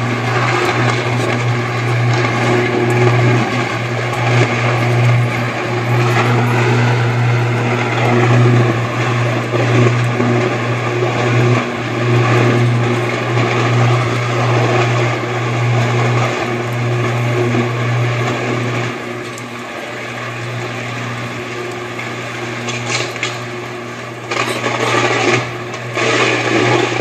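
Sustained high-voltage electrical arc at a power substation: a loud, steady electrical buzz. It drops somewhat in level about two-thirds of the way through, and a few crackling bursts come near the end.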